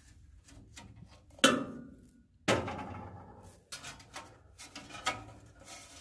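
Metal clanks and clicks from hands and a tool working on the furnace's burner assembly to take out the flame sensor: two louder knocks that ring briefly, about one and a half and two and a half seconds in, then lighter clicking and rattling.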